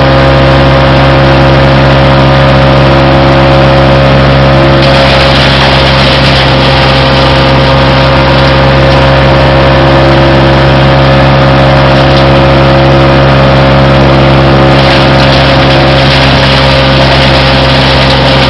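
2001 Dosko wood chipper's engine running at a steady speed, a loud, even drone that does not change pitch.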